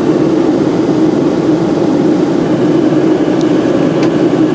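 Steady engine noise of a passenger airliner, loud and even, with no change in pitch.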